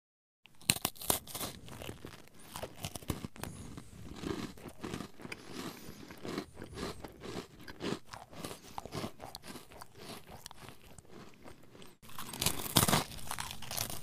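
Potato chips crunching in a dense, irregular crackle, as when chewed. There is a brief cut about twelve seconds in, and then a louder stretch of crunching.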